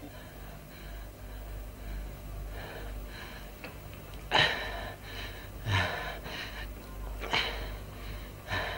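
A man breathing hard in distress: four loud gasping breaths about every second and a half, starting about four seconds in, with fainter breaths before them, over a low steady hum.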